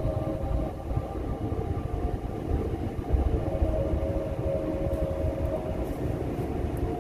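Car driving along a country road, heard from inside the cabin: a steady low rumble of engine and tyres, with a few held steady tones over it.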